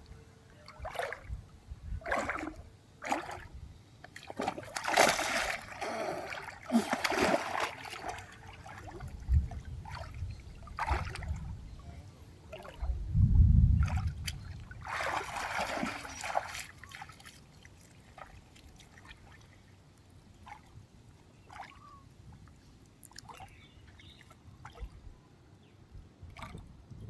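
Water splashing and sloshing in irregular bursts, heaviest in two stretches, with a dull low thump about halfway through and lighter drips and trickles toward the end.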